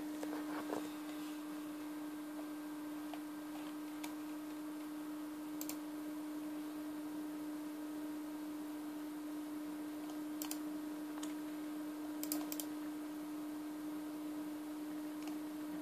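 Scattered clicks from an ASUS Eee PC 900 netbook's touchpad button, some single and some in quick pairs or short runs, over a steady low hum.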